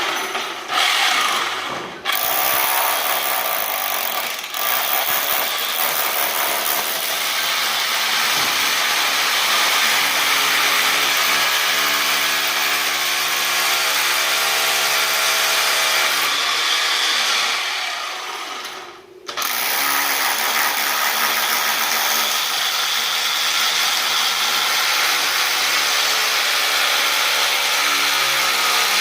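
Electric power tool working wood, its motor running steadily; about 18 seconds in it winds down and stops, then starts up again about a second later.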